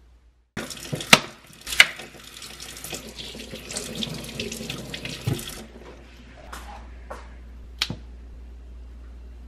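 Kitchen sink tap running, water splashing over tomatoes being rinsed by hand. It comes on suddenly about half a second in, with two sharp knocks close after, and stops after about five seconds. A few lighter knocks follow.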